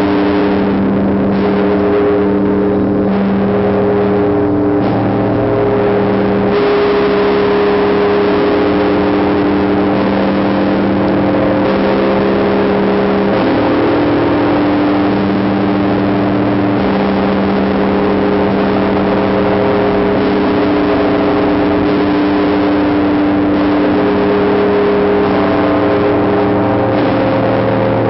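The great Tsar Bell of the Trinity-Sergius Lavra belfry ringing: a deep, continuous hum of many overlapping tones that keeps sounding between strokes, with its mix of tones shifting every few seconds.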